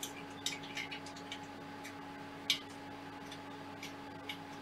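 Light, irregular metal clicks and ticks from small screws being turned by hand into the Prusa i3 MK3S's aluminium Y-axis frame, the sharpest click about two and a half seconds in. A steady faint hum runs underneath.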